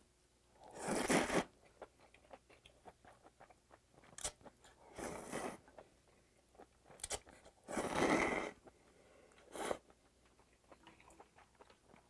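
A person slurping kudzu cold noodles (chik-naengmyeon) from a bowl of broth, with chewing between. There are three long, loud slurps about a second, five seconds and eight seconds in, shorter sucks between them, and small wet mouth clicks throughout.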